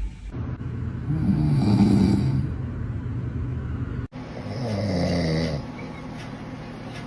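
A man snoring: two long snores, the first about a second in and the second just after four seconds in, falling in pitch.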